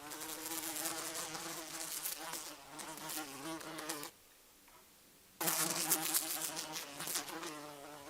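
A fly buzzing in flight, its pitch wavering up and down. The buzz stops about four seconds in, is gone for over a second, then starts again.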